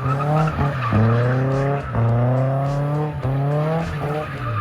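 BMW E36 318i four-cylinder engine revving hard, its revs climbing, dropping back and climbing again several times, over a steady tire squeal as the car drifts.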